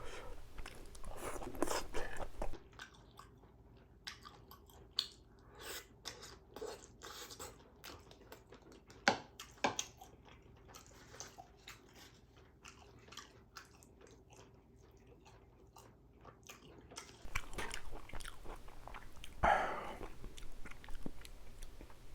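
A person chewing and biting food close to the microphone, with crunchy bites and wet mouth clicks coming irregularly. A few louder bites stand out near the start, midway and towards the end.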